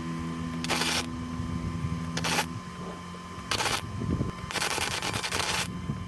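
MIG welder arc, a Magnum MIG 210 Synergia burning flux-cored wire, crackling in short bursts as tack welds are laid: three brief ones and then a longer burst of about a second near the end.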